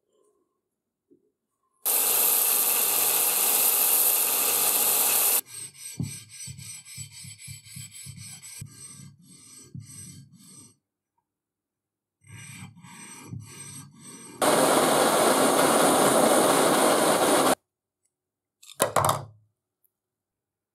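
An abrasive stone is rubbed back and forth by hand over a flat steel plate, a rasping stroke two or three times a second, in two stretches. Around these are two stretches of loud steady hissing noise that start and stop abruptly, and a short knock near the end.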